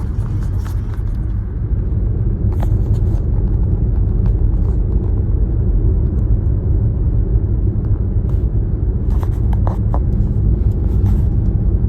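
Steady low rumble of road and engine noise inside a moving car, with a few faint short clicks.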